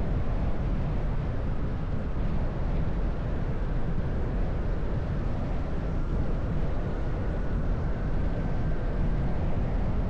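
Honda Cub 125 cc single-cylinder motorcycle engine and exhaust running steadily while riding along, with wind on the microphone.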